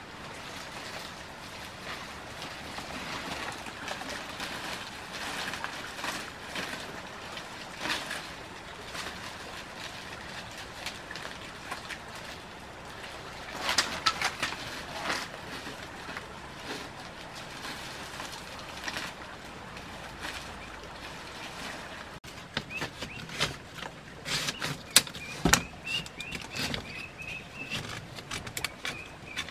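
Dry fan-palm fronds rustling and crackling as they are handled and laid over a roof frame, with a burst of crackling about halfway through. In the last few seconds, bamboo poles knock together several times, the loudest knocks sharp and close.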